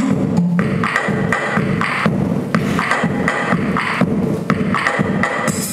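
Recorded dance music with a drum beat playing over the studio's loudspeakers.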